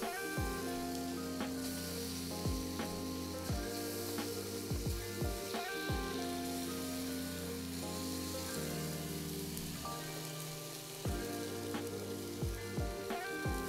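Marinated chicken breast pieces sizzling as they are laid into a hot oiled skillet on high heat, a steady frying hiss. Background music with a regular beat plays under it.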